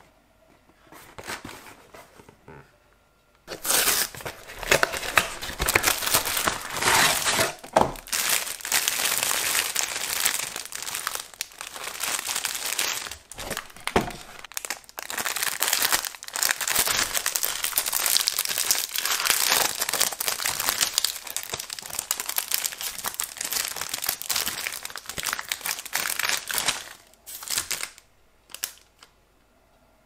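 Foil pastry wrapper crinkling loudly as it is handled and torn open. It starts about three and a half seconds in and stops a few seconds before the end.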